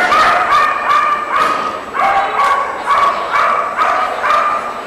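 A dog barking over and over in a steady string, about two barks a second.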